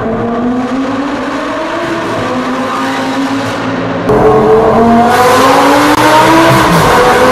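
Lamborghini Gallardo LP560-4's 5.2 L V10 with an Armytrix aftermarket exhaust under hard acceleration, revs climbing steadily through the gears, heard from inside the cabin with tunnel echo. It gets suddenly louder about four seconds in, and an upshift drops the revs near the end.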